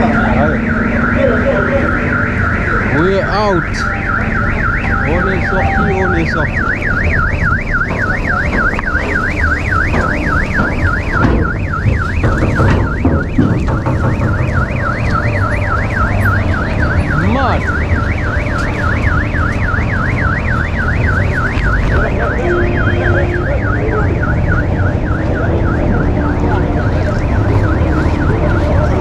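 Electronic alarm sounding a fast, even warble that rises and falls without a break, over a steady low rumble. It fades out near the end.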